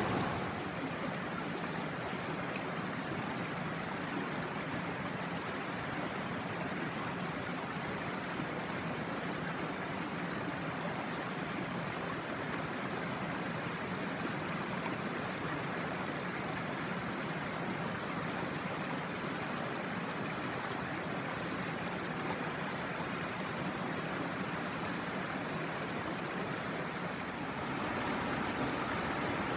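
Tanew River water rushing over shallow riffles and small rock cascades: a steady rush that grows louder near the end.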